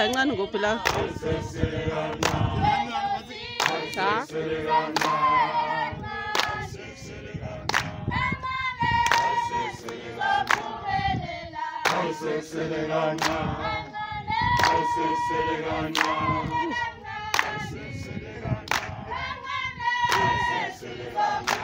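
A crowd of protesters singing a song together in many voices, with sharp beats keeping time.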